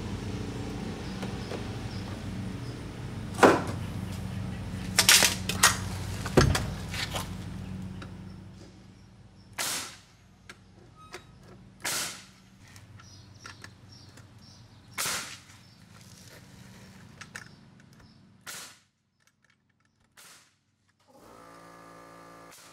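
Pneumatic nailer firing nails one at a time into wall framing lumber: sharp single shots one to three seconds apart, about seven in all. A steady low hum runs underneath for the first eight seconds or so.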